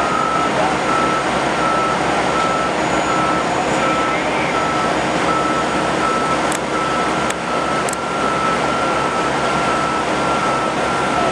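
A construction vehicle's backup alarm beeping steadily at an even pace over the din of engines and machinery on a steel-erection site. A few faint clicks come about two-thirds of the way through.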